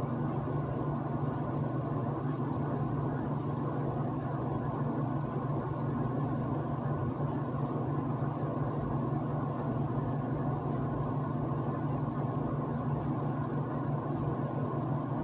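Steady low hum with a hiss over it, from a running machine.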